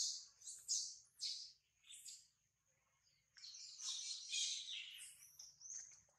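Baby macaque squealing in short, high-pitched cries, four in the first two seconds and then a longer run of cries in the middle, typical of a baby protesting being weaned.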